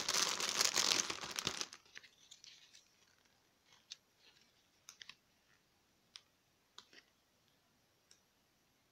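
Plastic wrapping crinkling as it is handled, stopping about two seconds in. After that come a few faint, separate clicks and taps as a small cardboard soap box is turned in the hands.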